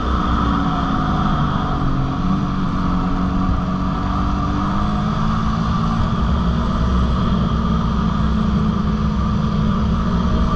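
Dirt bike engine running under way at steady speed. Its pitch eases down over the first few seconds, then holds steady, with wind rushing over the helmet microphone.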